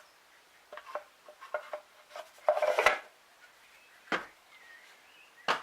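Wooden pieces being handled and knocked together: light taps, then a louder clatter about halfway, and two single sharp knocks near the end.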